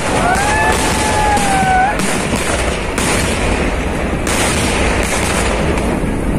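Fireworks barrage: rapid bangs of exploding shells and crackers merging into a continuous crackle. A high whistling tone is held through the first two seconds.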